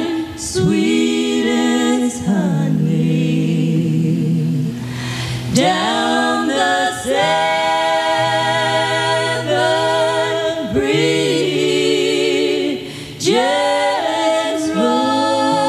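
Several voices singing close harmony a cappella, holding long, sustained chords with vibrato and moving together from phrase to phrase, with brief breaks between phrases.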